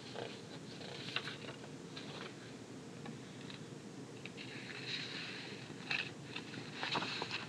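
Faint paper rustling and sliding on a desk, with a few light taps and clicks from handling a pen and the sheets.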